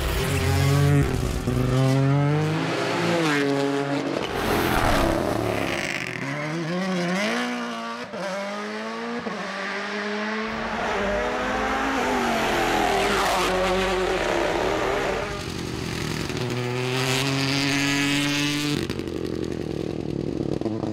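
Rally car engines revving hard and accelerating, the pitch climbing and dropping again and again through gear changes, with tyre and gravel noise mixed in.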